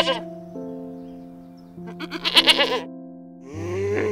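A goat bleats once, about two seconds in, over soft background music with long held notes. A different animal call begins near the end.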